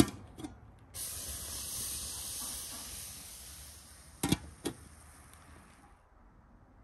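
A knock of the pot's metal lid as it is taken hold of, then a steady high hiss of steam escaping from the freshly cooked pilaf as the lid is lifted, slowly fading. Two sharp metallic clinks of the lid against the pot come near the middle.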